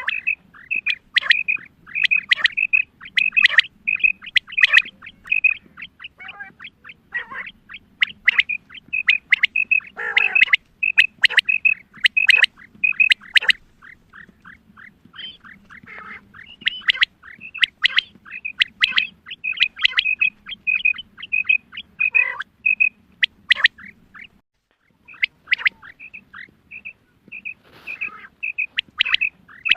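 Female common quail calling: fast runs of short, high notes, several a second, mixed with quick notes that slide downward. There is a brief pause about 25 s in.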